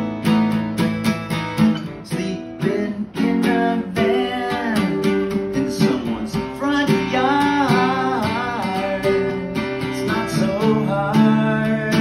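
Acoustic guitar strummed in a steady rhythm of chords, with a man's voice singing over it from about four seconds in.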